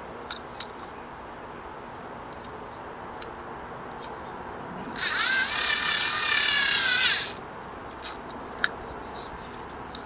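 Small cordless screwdriver running for about two seconds in the middle, driving a GFCI outlet's side terminal screw down onto a wire; its motor whine dips slightly in pitch before it stops. A few light clicks of handling before and after.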